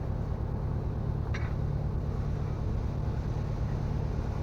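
Steady low mechanical hum, with one light click about a second and a half in.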